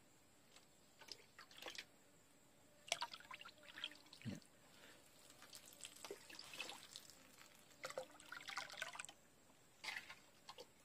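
Faint, irregular drips and small plops of liquid in a plastic watering can of water mixed with fermented chicken-manure liquid fertiliser.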